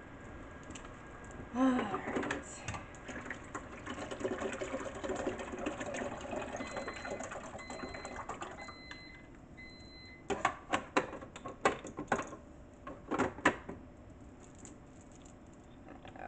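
Handling sounds at a single-serve pod coffee maker. A loud clunk comes about two seconds in, followed by a few seconds of steady rustling handling noise. An appliance then beeps four times, about a second apart, and a quick run of sharp plastic clicks and knocks follows.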